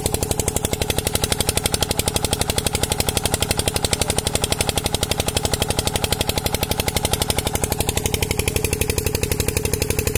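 Diesel engine driving a tubewell water pump, running steadily with an even, rapid chug of firing strokes, several a second.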